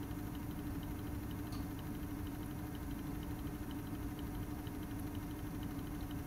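A machine's steady hum with a faint, regular ticking, roughly two and a half ticks a second.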